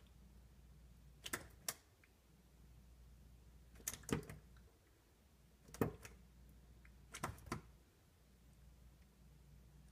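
A handful of faint, sharp clicks and taps, singly or in quick pairs every couple of seconds, over a low steady hum.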